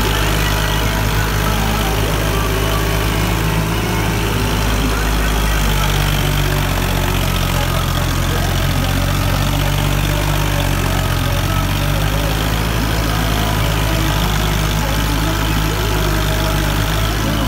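Diesel farm tractor engine running steadily, with a steady hiss of machinery over it.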